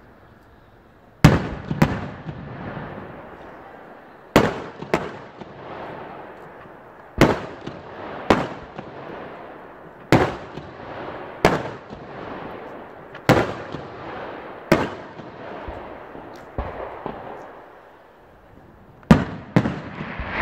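Large professional fireworks display: sharp bangs of aerial shells every one to three seconds, many coming in pairs about a second apart, each trailing off over a second or two.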